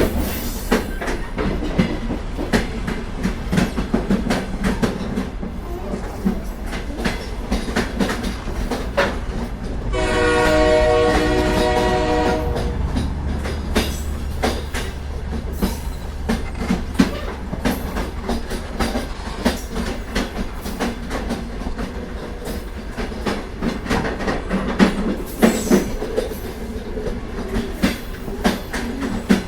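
Moving train: a steady rumble with the wheels clacking irregularly over the rail joints, and the train's horn sounding once for about two seconds, roughly ten seconds in.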